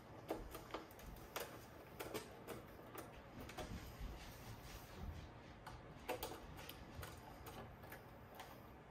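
Faint, irregular clicks and taps, about one or two a second, of a screwdriver and screws being handled as the cassette deck's panels are screwed back on.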